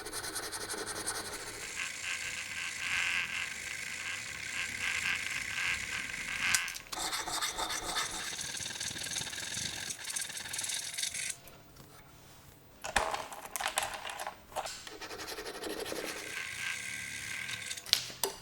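Repeated rubbing, rasping strokes of hand work on a small metal workpiece, like filing or sanding. There is a brief break about six and a half seconds in and a pause of about a second and a half past the middle, then a few sharp knocks.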